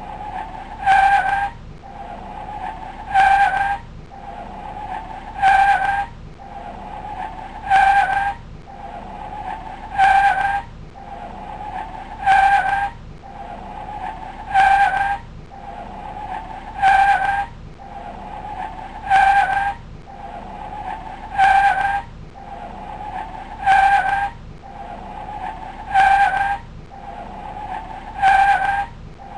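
Car tyres squealing in a loop: a high squeal that swells into a loud burst about once every two and a half seconds, over and over, with a softer squeal between the bursts.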